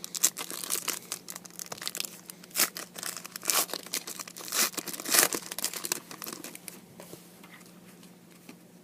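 A 2013 Panini Contenders card pack's wrapper being torn open and crinkled: a dense run of sharp crackles for about six seconds, then only light rustling as the handling dies down.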